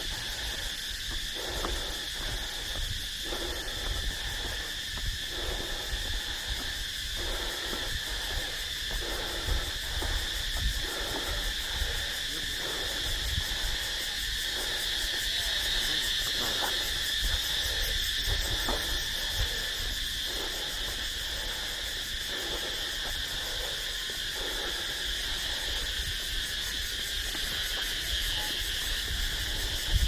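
Evening chorus of insects in tropical vegetation, a steady shrill high-pitched trilling that never stops. Softer, lower pulses repeat about once a second underneath it.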